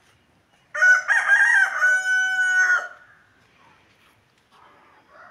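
Rooster crowing once: a loud crow of about two seconds that ends on a long held note. A fainter chicken call follows near the end.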